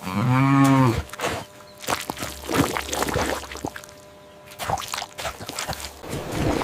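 A cow moos once, a single low call of about a second at the start, followed by a run of irregular clicks and rustling.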